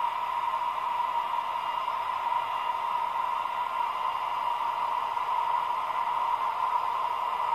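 Recorded sound of a DB 218 diesel locomotive's MTU TB11 engine running steadily, played back through the small built-in speaker of a Roco H0 model locomotive, which leaves it thin, with no deep bass.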